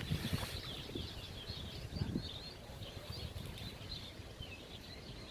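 Faint chirping of small birds, many short chirps, over a low uneven rumble.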